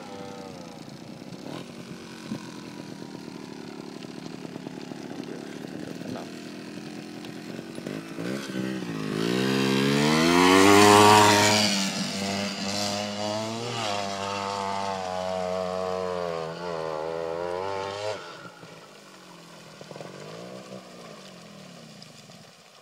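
Trial motorcycle engine revving in repeated rising and falling bursts. It grows loud as the bike comes close about ten seconds in and drops off suddenly about eighteen seconds in, then runs on fainter as the bike moves away.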